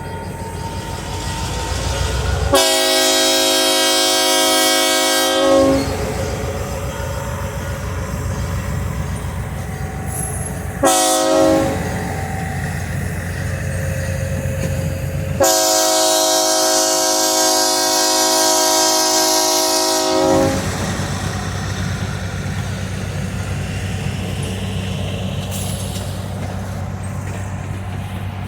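Train horn sounding three blasts, long, short, long, over the steady rumble of the train running.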